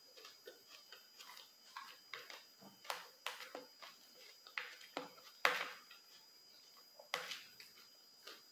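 Close-miked eating sounds: irregular wet mouth clicks and smacks of chewing, with cutlery now and then tapping and scraping the plate. The loudest click comes about five and a half seconds in.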